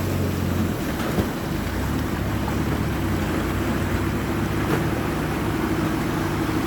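Off-road vehicle engine running steadily, with a rushing noise over it.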